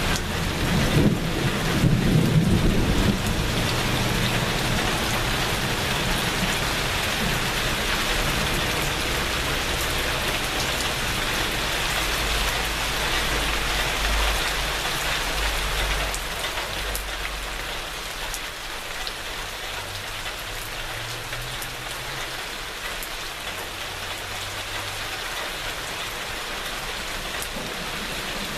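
Steady rain falling, with thunder: a loud clap and rumble about a second in, then a low rolling rumble that dies away a little past halfway, leaving the rain alone.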